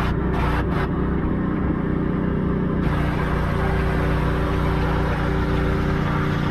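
A pressure washer runs steadily, its motor giving a constant hum, while a walnut-shell blasting attachment sprays with a hiss. The hiss cuts out briefly twice in the first second and comes back stronger about three seconds in.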